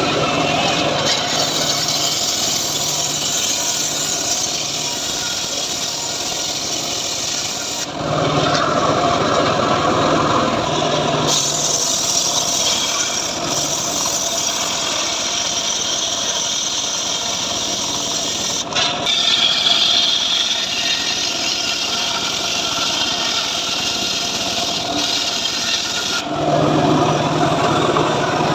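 Home-built engine-driven circular saw (gergaji srekel) sawing sengon wood. It runs continuously, and its sound changes several times as the cut and the load shift.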